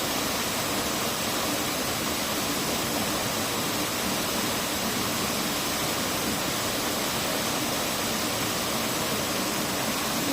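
Steady rush of water from a stream or waterfall pouring into a natural rock pool.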